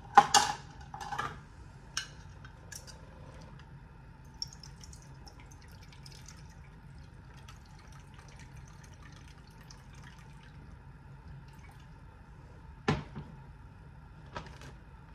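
Balsamic vinegar being measured out from a glass bottle into a plastic measuring cup over a bag of chicken, a faint trickle of pouring liquid. Several sharp clicks and knocks from handling the bottle and cup are heard in the first few seconds, the loudest right at the start, and another comes about thirteen seconds in.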